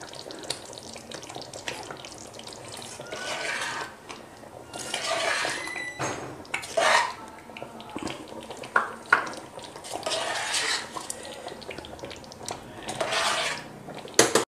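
A steel spoon stirring thick spinach kofta gravy in a cooking pot, scraping and clinking against the pot in several short bouts, with a few sharp clicks about nine seconds in.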